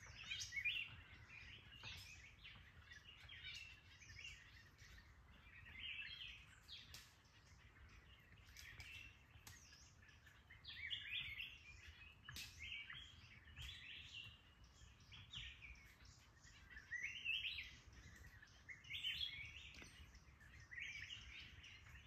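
Faint chorus of small birds chirping and calling, many short high calls overlapping throughout.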